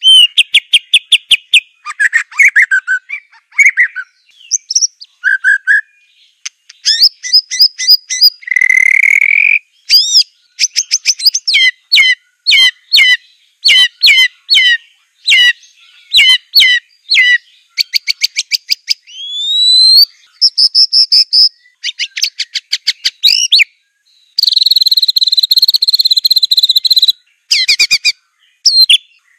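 White-rumped shama (Aceh murai batu) singing a long, varied song: fast series of repeated sharp notes, clear whistles and rising slurs, with a harsh, buzzy chattering phrase near the end.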